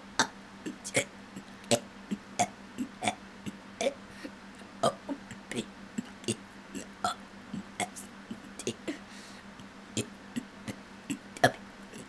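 A boy burping out a string of short, sharp burps, about one or two a second, burping the alphabet letter by letter.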